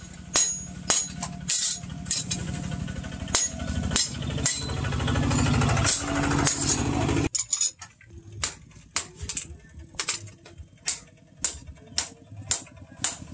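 Hand hammer blows ringing on a steel axe head held on a steel anvil stake. A motor hums steadily under the irregular blows and stops abruptly about seven seconds in; after that the blows come steadily, about two a second, on red-hot steel.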